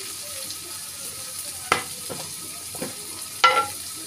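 Onion, green chilli and tomato sizzling steadily in a frying pan, with two sharp knocks, about a second and three-quarters in and again about three and a half seconds in, and a couple of fainter ones between them.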